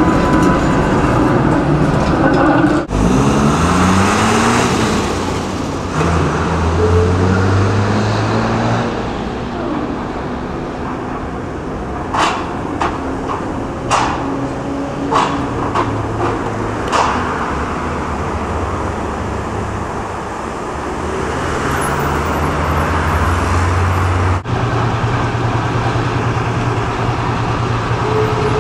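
City street traffic and trams: motor vehicle engines running and pulling away with a rising pitch early on. In the middle comes a run of sharp clacks from a tram's wheels crossing the points and rail joints of the terminus siding.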